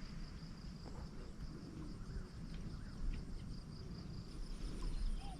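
Insects chirring outdoors: a steady, high, evenly pulsing trill, joined by a second, higher pulsing trill near the end, over a low rumble.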